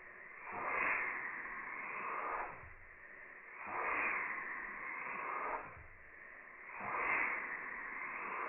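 A single-cylinder horizontal mill-type model engine is running very slowly on compressed air. Its exhaust hisses in slow puffs, one about every second and a half, each swelling and fading away.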